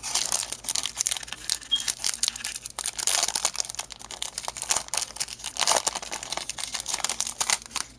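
A Yu-Gi-Oh! foil booster pack wrapper crinkles and tears as it is ripped open by hand, with irregular crackles and rustles.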